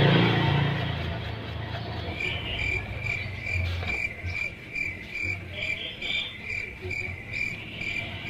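An insect chirping, a high note at one steady pitch repeated evenly about two and a half times a second, starting about two seconds in. Faint low knocks of metal parts being handled sound underneath.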